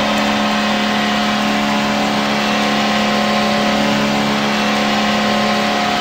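Nashville Predators hockey goal horn sounding one long, steady, unbroken blast over a steady wash of noise.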